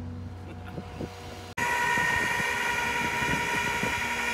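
Rollback tow truck running with a low steady hum. About a second and a half in, the sound changes abruptly to its hydraulic winch whining steadily at a high pitch while it pulls a disabled car up the tilted bed.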